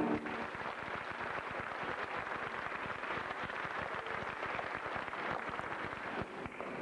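Audience applauding: many hands clapping in a dense, steady stream that dips slightly near the end.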